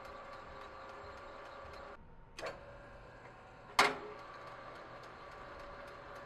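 Benchtop metal lathe running while drilling a pilot hole into the end of a rod, a steady motor whine with a fast regular ticking. About two seconds in the running sound dips briefly, a light click follows, then a sharp metallic knock just under four seconds in, and the steady running sound comes back.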